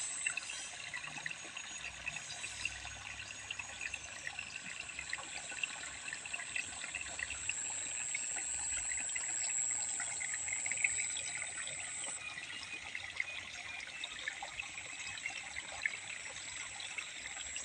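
Water trickling and dribbling steadily, with many small splashy ticks, and a thin steady high-pitched tone above it.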